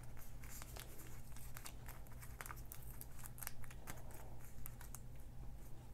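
Faint paper rustling and small crackles as a die-cut paper word sticker with double-sided adhesive is peeled off its backing sheet, scattered irregular ticks throughout.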